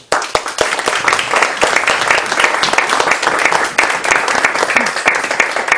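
Audience applauding: a roomful of people clapping.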